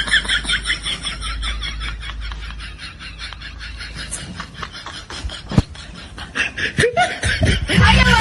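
A woman laughing hard in quick repeated bursts that trail off. Music comes in near the end.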